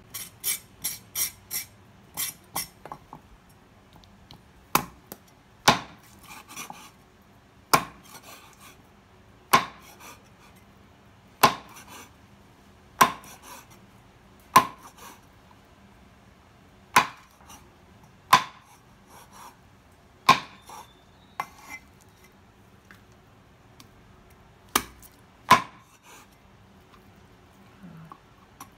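Cleaver chopping pork tails into chunks on a wooden chopping block. It opens with a quick run of light taps, then single hard chops about every one and a half to two seconds.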